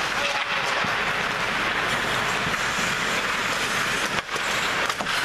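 Steady rushing noise of play on an indoor hockey rink, with skates scraping the ice.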